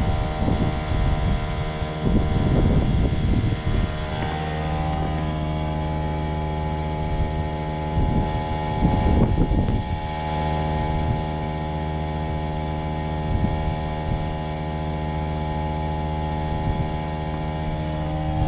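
Trane XV18 variable-speed heat pump running with a steady hum of many even tones, which the owner calls very noisy and takes for a lemon. Wind buffets the microphone in the first few seconds and again around nine seconds in.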